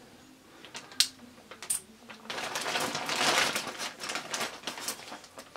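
Plastic bags crinkling and small metal hose clamps clinking as they are sorted by hand, with one sharp click about a second in and a longer stretch of dense crackly rustling and clatter from about two seconds in.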